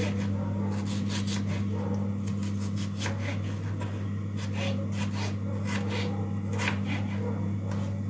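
Kitchen knife slicing a large onion on a wooden cutting board: repeated, irregular strokes cutting through the onion layers and knocking on the board, about two a second.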